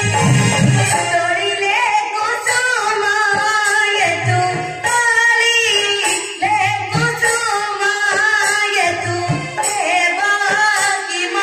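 Odia Rama Nataka stage song: a high voice singing a wavering, ornamented melody over a rhythm of low drum beats.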